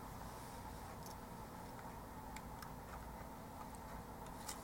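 Faint, scattered light clicks of small plastic kit parts being handled and pressed together, with one slightly louder click near the end, over a low steady hum.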